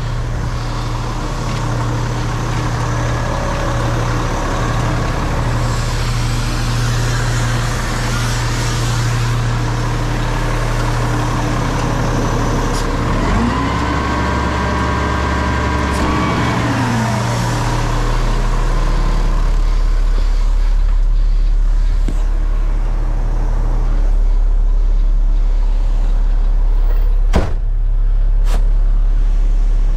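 Roll-off garbage truck's diesel engine running steadily, heard inside the cab; its pitch rises and falls once around the middle. Two sharp clicks come near the end.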